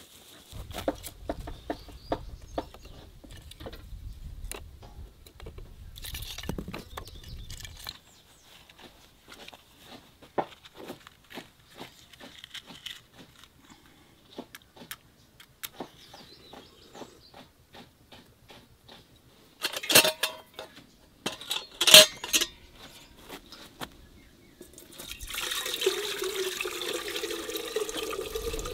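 Water poured from a metal jug into an enamel kettle, a steady splashing over the last three or four seconds. Before it, scattered light clicks and two loud, sharp knocks about two seconds apart.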